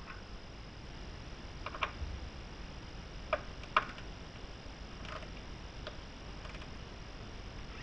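A handful of separate sharp metal clicks and ticks from hand tools as a rivet nut (nutsert) is set into the rocker panel with a wrench-turned installation tool. The loudest click comes just under four seconds in.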